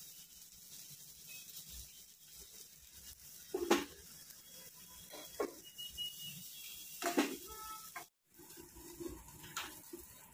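Metal spatula clinking and scraping on a frying pan and a stainless wire-mesh grill as chicken pieces are moved, a few scattered knocks, two of them louder, over faint sizzling.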